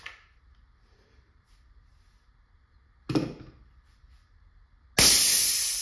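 A single clack from handling a CO2 less-lethal launcher pistol, then about two seconds later a sudden loud hiss that fades away: the leftover gas venting as the spent CO2 cartridge is unscrewed from the grip.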